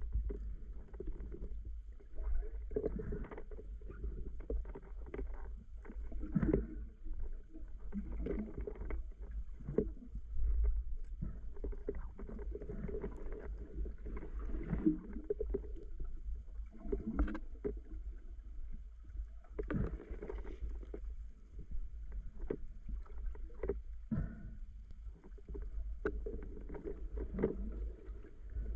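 Muffled water sloshing and swirling against a waterproof camera as a spearfisher swims, with a steady deep rumble and irregular surges every second or so.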